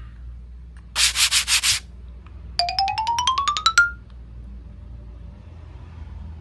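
Edited-in sound effects: a short scratchy rasp about a second in, then a quick run of clicks climbing in pitch, over a faint low background bed.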